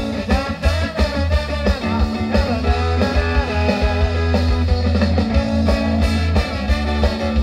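Live ska band playing an instrumental passage with a steady beat: a horn section of trombone, tenor saxophone and trumpet over electric guitar, bass guitar and drums.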